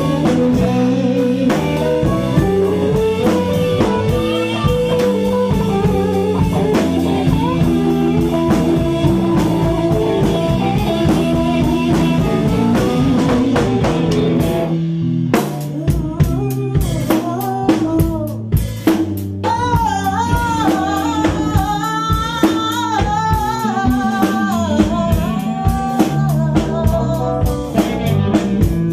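Live blues band playing through amplifiers: an electric guitar lead over bass and drums, a brief break about halfway, then the band comes back in with sharp drum hits and a woman singing.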